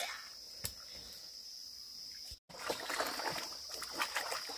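Water sloshing and splashing with small knocks as stones are turned over and hands move through shallow stream water, over a steady high insect drone. The sound cuts out for a moment about halfway, and the splashing and knocking are louder after it.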